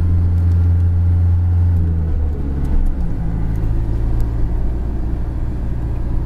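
Delivery van driving, heard from inside the cab: a steady low engine hum over tyre and road noise. The engine note changes about two seconds in.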